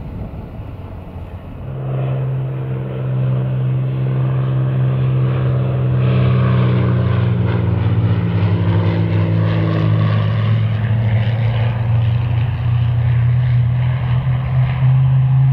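A Boeing 777-300ER's GE90-115B turbofan engines running as the jet taxis. About two seconds in the sound grows louder, with a steady low hum and several steady tones, and a higher hiss joins from about six seconds in.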